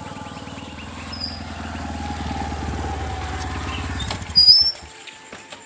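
Small single-cylinder commuter motorcycle riding up at low speed, its engine running louder as it approaches. About four seconds in it stops with a brief high squeal, and the engine cuts off.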